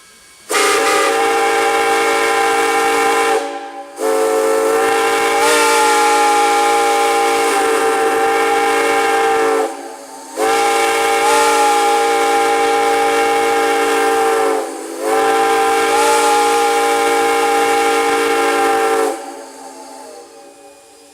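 Steam whistle blown in four long blasts, each sounding several steady tones at once over a hiss of steam. The second blast is the longest. The steam hiss dies away after the last blast near the end.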